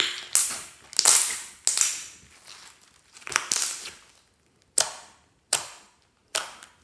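Clear glittery slime being squeezed and kneaded by hand, letting out a series of sharp pops and crackles as air trapped in the slime bursts out, about eight in all, each dying away quickly.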